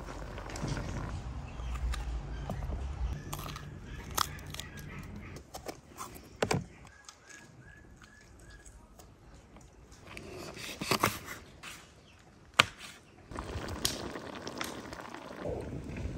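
Outdoor cooking sounds: a spoon stirring chopped tomatoes in a metal pan, then a few sharp knocks of a knife on a wooden cutting board while peppers are sliced. The loudest knock comes near the end, and there are faint bird calls in the background.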